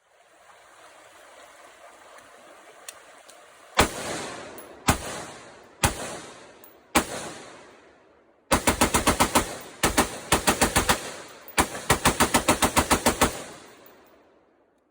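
11.5-inch-barrelled AR-15 in 5.56 firing four single shots about a second apart, then three strings of rapid fire at about six or seven shots a second. Each shot trails off in a long echo.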